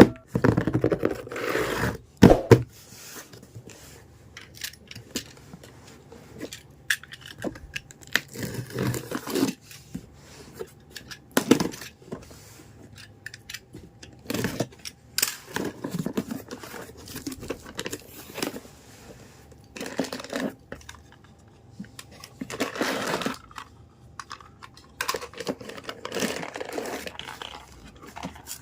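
Unboxing a miniature toy kitchen set: packaging torn and crinkled in irregular bursts, with scattered clicks and knocks of small pieces being handled.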